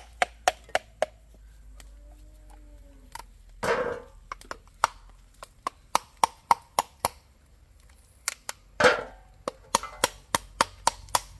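A blade chopping into a coconut to break its top open. The sharp chops come in three quick runs of about four a second, with two heavier, louder blows between them.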